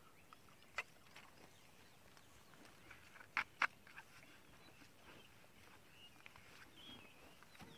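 Plastic drink bottle being handled and its cap screwed on: a few sharp plastic clicks, the loudest two close together about three and a half seconds in. Faint high chirps later on.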